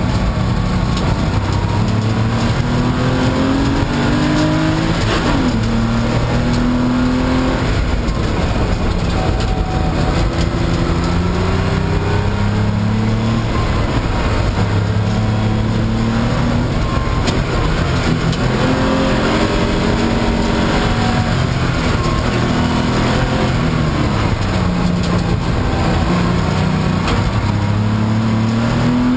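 Race car's engine heard from inside the cabin during a hard autocross run: it repeatedly revs up, climbing in pitch for a second or two, then drops as the driver lifts or shifts, over a steady rushing noise.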